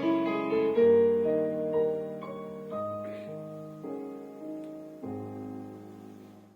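Slow keyboard music, probably a piano: held notes and chords changing about once a second, fading away near the end.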